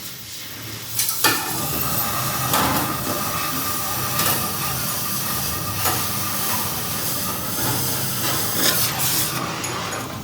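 Steady hissing noise with several sharp metallic knocks scattered through it, typical of heavy-vehicle workshop repair work.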